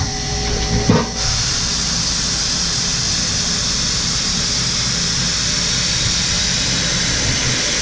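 Datron M8Cube CNC mill hissing steadily during its tool change and tool measuring. A short click comes about a second in, just before the hiss starts.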